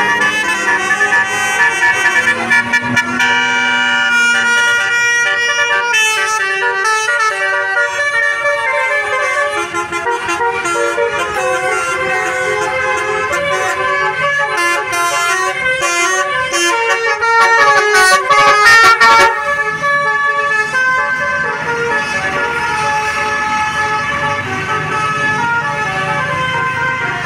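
Bus musical air horns playing quick shifting tunes of several tones at once, loudest about 17 to 19 seconds in.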